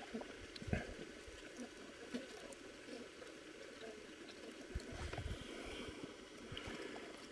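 Faint, steady low hum of a honeybee colony clustered in its hive under a wire mesh, with a few soft knocks from handling about a second in and again near the middle.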